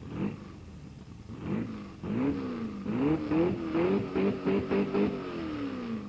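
Car engine being revved: a few short throttle blips, then the revs climb and are held high with a pulsing about three times a second, falling away near the end.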